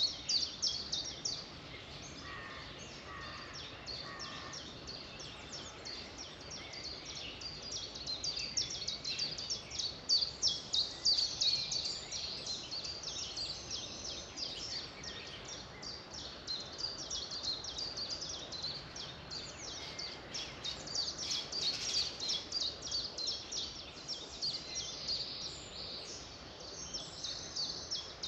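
Chorus of many small birds chirping and singing: a dense run of quick, high chirps over a steady background hiss, with a few lower, repeated whistled notes a couple of seconds in.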